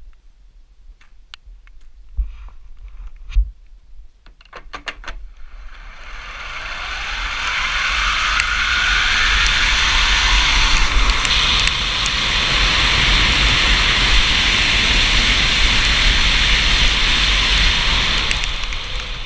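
Ski-jumping skis sliding down the inrun track: a few small clicks, then a rush of air and ski noise that swells with a rising whine as speed builds. It holds as a steady, loud rush of wind on the microphone and skis running over the plastic matting, then falls away near the end.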